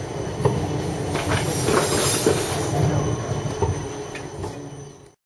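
Modern low-floor articulated tram (a Budapest Siemens Combino) rolling past at close range: steady wheel-on-rail rumble with a thin squeal and a few sharp clicks from the wheels. The sound cuts off suddenly near the end.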